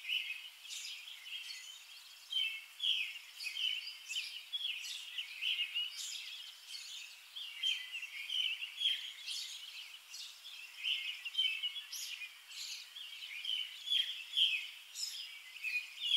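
Small birds chirping: a steady stream of short, high notes, several a second, overlapping one another.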